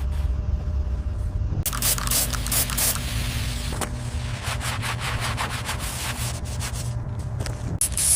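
Abrasive scrubbing on rusty metal over a steady low motor hum, the rasping starting about one and a half seconds in and going on in many short, uneven strokes.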